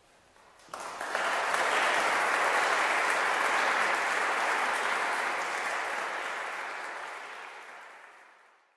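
Audience applauding, breaking out suddenly about a second in and dying away near the end.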